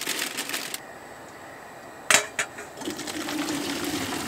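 Food poured from a plastic bag into a pot on a stove, rustling, cut off abruptly just under a second in. Two sharp clanks of metal cookware a little after two seconds in, then steaming hot water pouring steadily out of a saucepan into a metal colander.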